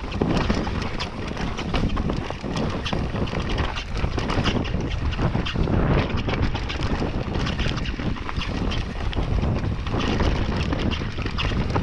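Mountain bike descending a dirt forest trail at speed: tyres rolling over loose loam and roots with constant rattling and frequent sharp knocks from the bike, under a steady rush of wind on the microphone.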